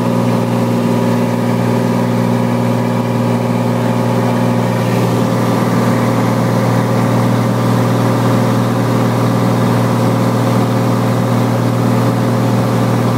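Cessna light aircraft's piston engine and propeller in cruise, a loud steady drone heard inside the cabin. The tone roughens slightly about five seconds in.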